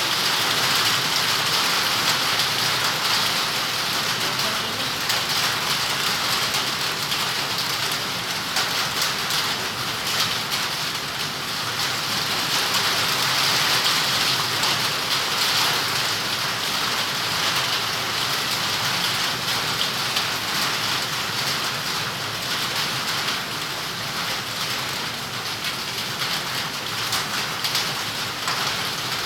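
Heavy rain falling steadily, an even hiss of drops on surfaces with no let-up.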